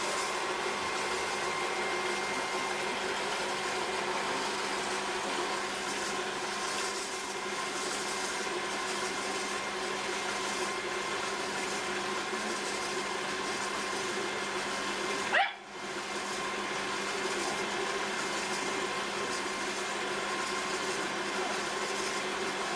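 Potter's wheel running with a steady hum made of several even tones. About two-thirds of the way through, a short rising squeal is followed by a momentary dropout before the hum resumes.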